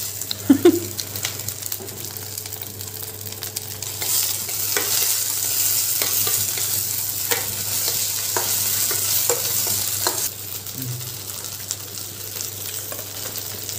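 White gourd sizzling in a steel pot while a steel ladle stirs it, clinking and scraping against the pot now and then. The sizzle grows louder about four seconds in and drops back after about ten seconds. The gourd is being cooked down until it browns.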